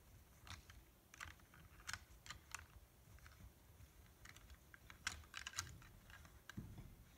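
Faint, irregular clacking of two deer bucks' antlers as they spar with their racks locked, in scattered clusters of sharp clicks.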